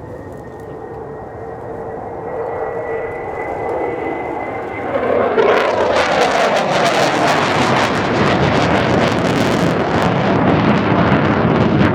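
F-15DJ Eagle's twin jet engines approaching: a whine that rises slowly in pitch and grows louder. About five seconds in it turns into a loud jet rush with heavy crackling.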